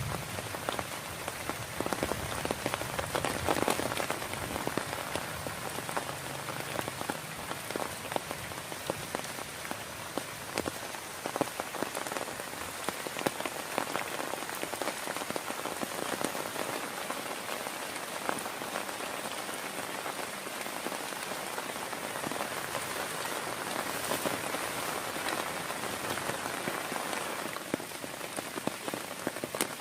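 Heavy rain falling steadily, a dense patter of many drops striking a surface.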